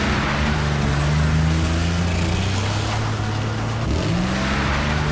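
Animated monster truck race engine sound effect: a steady low engine drone that revs up in pitch about four seconds in, over a constant rushing noise.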